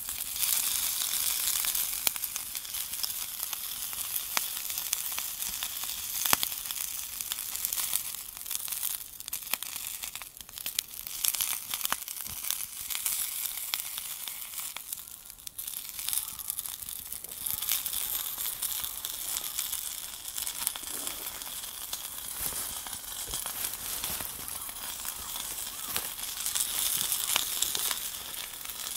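A twig fire crackling in a Firebox stove: a steady hiss with many sharp crackles and pops.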